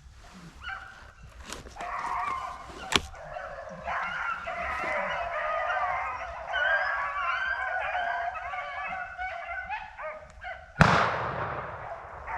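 A pack of rabbit hounds bays together in full chase, their voices piling up and overlapping. About eleven seconds in comes one shotgun blast, the loudest sound here, and it kills the rabbit.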